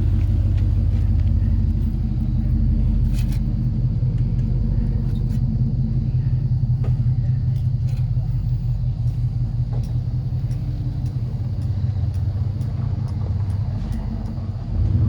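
Steady low engine-like rumble with a hum, easing slightly near the end.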